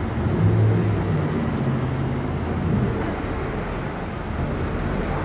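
Street traffic: a motor vehicle's engine running close by over the steady noise of the road, its low hum fading out about three seconds in.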